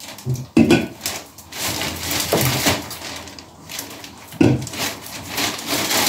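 Plastic carrier bag rustling and crinkling as groceries are pulled out of it, with a couple of knocks from items being handled and set down, about half a second and four and a half seconds in.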